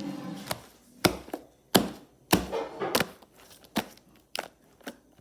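Slime being squished and pressed, giving a run of sharp, irregular clicks and pops, the loudest about a second to three seconds in.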